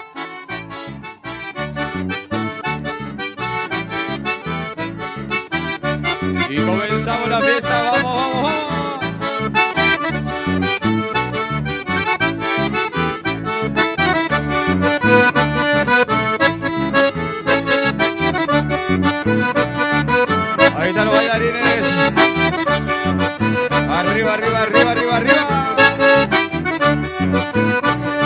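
Accordion-led traditional folk music with a steady rhythmic accompaniment, growing louder over the first few seconds.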